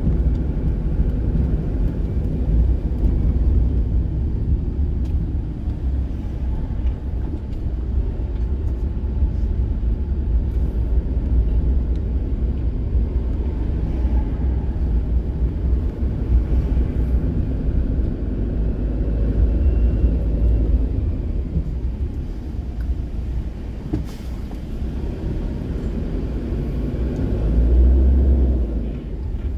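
Steady low engine and road rumble heard from inside a vehicle's cab as it drives at town speed. Near the end the rumble swells briefly as an oncoming coach passes close alongside.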